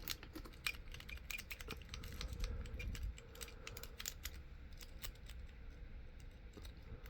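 Faint, irregular small metallic clicks of a lock pick working the pins of a padlock under light tension; the lock does not open.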